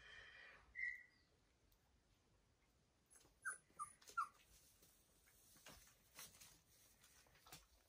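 Faint, short high-pitched whimpers from a 4½-week-old Australian Shepherd puppy: one squeak about a second in, then three in quick succession a little after the middle.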